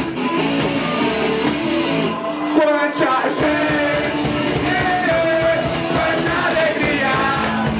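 A rock band playing live with electric guitar, bass and drums, with singing.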